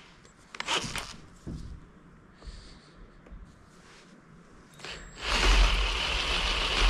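Cordless drill with a 9/16-inch bit boring through the Powerglide transmission case, starting about five seconds in and then running steadily under load. A few light clicks come about a second in, before it starts.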